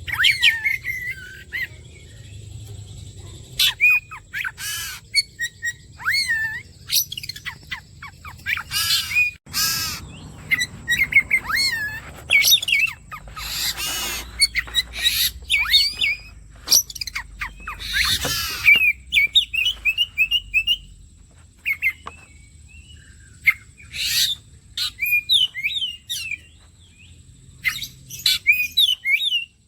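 Oriental magpie-robin (kacer) singing a fast, varied song of whistles and chirps, mixed with several harsh, rasping notes.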